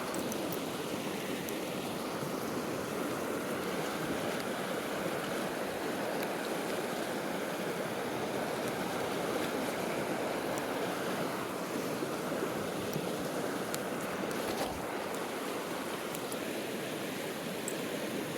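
A creek flowing steadily, a constant rushing of water, with a few faint clicks on top.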